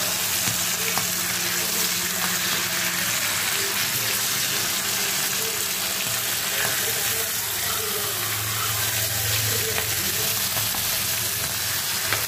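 Masala-coated seer fish (vanjaram) steaks sizzling steadily as they shallow-fry in hot oil in a pan, turned over with a spatula.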